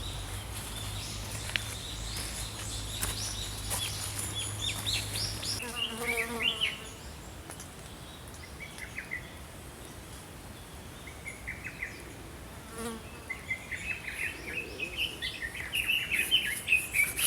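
Small birds chirping and trilling in short calls, busiest near the end. A flying insect buzzes with a steady low hum for the first five seconds or so.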